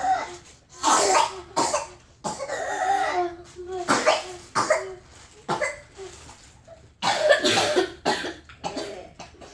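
A child with whooping cough in a coughing fit: a run of about a dozen harsh coughs, one after another, with strained voiced breaths between some of them.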